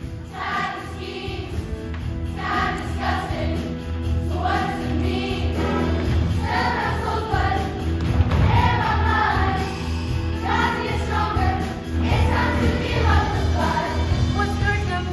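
A middle school show choir singing together in short phrases over an instrumental accompaniment with a steady bass line.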